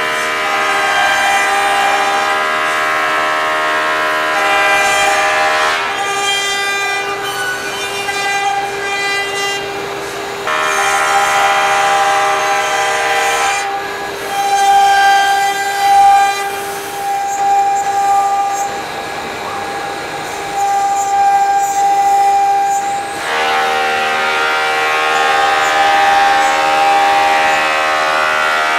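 CNC router carving a wooden panel with a V-bit: the spindle and axis motors give a steady whine of several held tones, and the mix of tones shifts every few seconds as the machine works.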